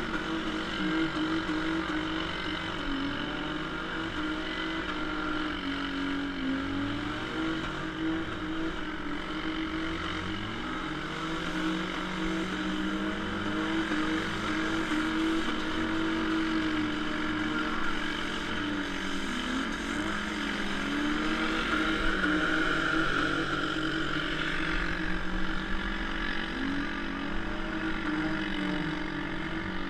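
Several demolition-derby car engines revving at once, their pitches rising and falling over one another throughout.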